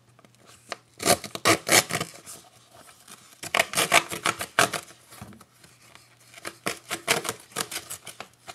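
A blade cutting and scraping through the packaging of a product box, in three spells of quick rasping strokes: about a second in, around the middle, and near the end.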